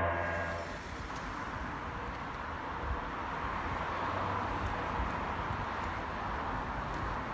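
Outdoor street ambience: the steady hiss and rumble of road traffic, swelling a little midway and cutting off abruptly at the end.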